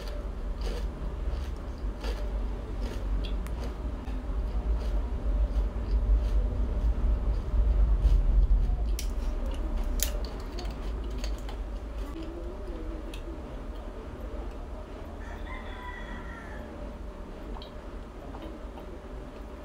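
Close-miked chewing of crispy fried rice, a low rumble with small crunchy clicks, strongest in the first half. Then a plastic water bottle is handled and opened with a few sharp clicks, and she drinks from it near the end.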